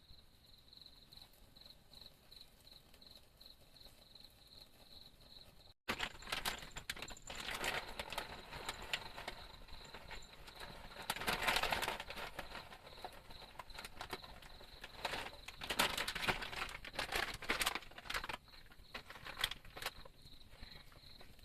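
A cricket chirps steadily, about twice a second. About six seconds in, after a brief cut, loud irregular crackling and rustling with many sharp clicks takes over for about twelve seconds, then dies down and the chirping returns near the end.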